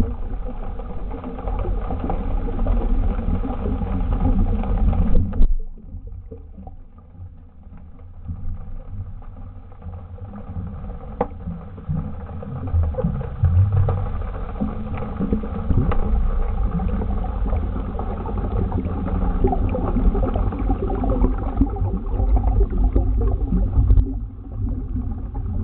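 Muffled underwater noise picked up by a camera at about 8 m depth, a steady low rumble. It drops off suddenly about five seconds in and builds back up over the next few seconds.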